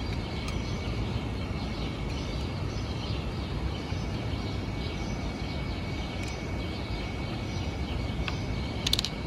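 Steady outdoor city background noise, mostly a low rumble, with a few faint clicks and a short high chirp near the end.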